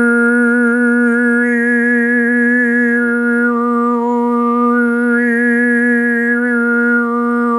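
A man overtone singing: one steady drone held without a break, with a high whistling overtone melody above it that comes up and shifts twice.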